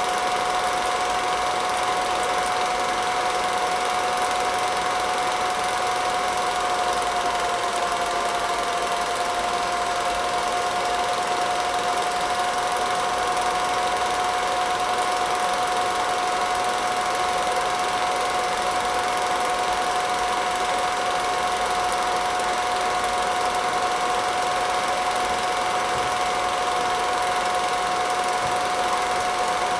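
Home-movie film projector running during the transfer: a steady mechanical whine with an even hiss, the whine sagging slightly in pitch about a quarter of the way through.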